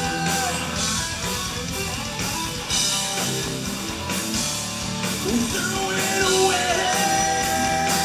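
Live rock band playing a song: electric guitars, bass guitar and drums with cymbals.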